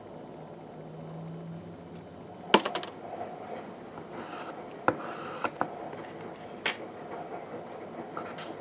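A table knife clicking and tapping against a plastic spread tub and a plate as spread is scooped out for bread: a handful of sharp clicks, the loudest quick cluster about two and a half seconds in.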